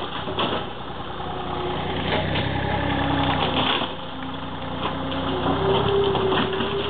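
Gehl skid-steer loader's engine running steadily, its pitch shifting as the machine works, with a few short cracks of wood and debris as its bucket tears at a cottage wall.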